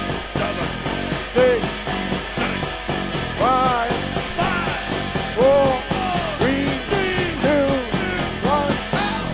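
Live rock band playing: electric guitar, bass guitar and drums, with a lead sound that swoops up and down in pitch in short arcs about once a second.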